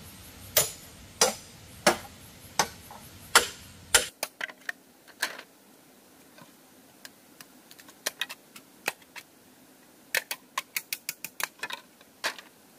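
Six loud, sharp knocks about two-thirds of a second apart as an upright bamboo post is struck on top to drive it into the ground. Then lighter scattered taps and, near the end, a quick run of clicks as bamboo poles on the ground are worked with a hand tool.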